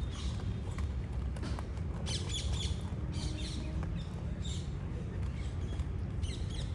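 Small birds chirping in short bursts, five or six times, over a steady low rumble.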